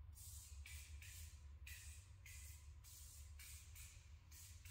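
Faint, evenly spaced hissing puffs, about two a second, as the flywheels of a stuck antique hit-and-miss engine are rocked back and forth to work it loose after a soak of penetrating oil. A steady low hum runs underneath.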